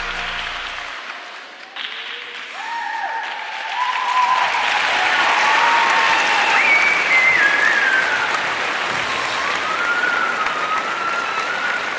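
The last notes of the program music die away in the first second, then an audience applauds, with long whoops rising and falling over the clapping.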